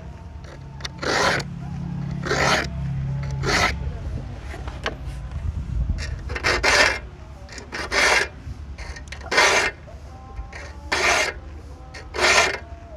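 Bahco saw file rasping across the teeth of a hand saw in separate forward strokes, about eight of them, roughly one every second and a half with a pause about halfway. Each stroke files two teeth at once.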